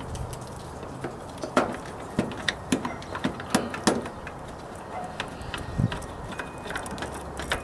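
Irregular sharp clicks and light knocks of hard plastic and metal parts being handled inside a washer cabinet, as the inlet valve and its wiring are worked back into place, over a faint steady low hum.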